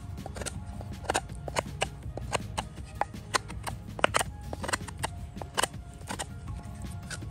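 Cold Steel SR1 Lite folding knife whittling a point on a wooden stake: an irregular run of short, sharp shaving strokes, a few each second, as the blade takes chips off the wood.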